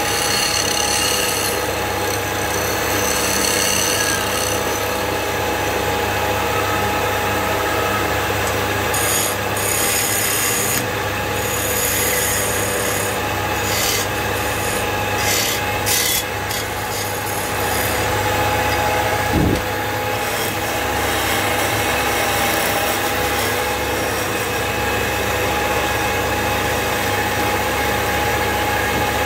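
Wood lathe running with a steady hum while a hand-held turning chisel cuts and scrapes the spinning wooden table leg, the cutting noise swelling and easing in stretches. One short thump about two-thirds of the way through.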